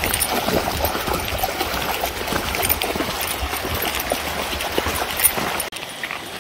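Shallow river water splashing and sloshing steadily with many small irregular splashes, as when wading through a riffle; about two-thirds of the way through it cuts off suddenly to a quieter, even rush of flowing water.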